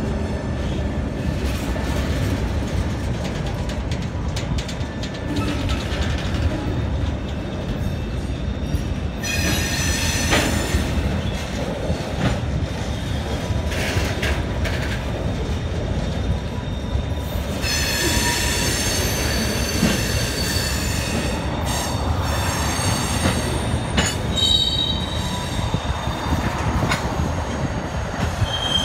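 Freight train passing close beneath: diesel locomotives and then railcars rolling by with a steady low rumble. Wheels squeal high-pitched about ten seconds in, again for several seconds around eighteen to twenty-one seconds, and briefly near the end.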